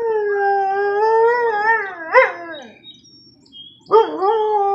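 Husky howling: a long, wavering howl that breaks into a sharp rise and fall about two seconds in and trails off. After about a second's pause, a new howl starts with a quick upward swoop and then holds steady.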